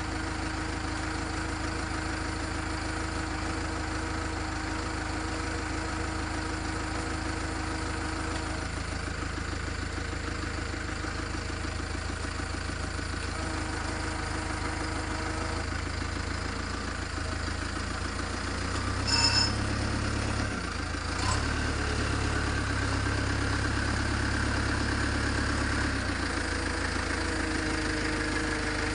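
Backhoe engine running steadily at idle; its low rumble grows stronger for several seconds past the middle, then eases back. A sharp ringing clank about two-thirds of the way in, and a smaller click soon after.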